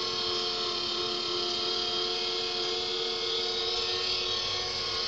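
Automatic dog brush's small electric motor running with a steady hum while held against hair.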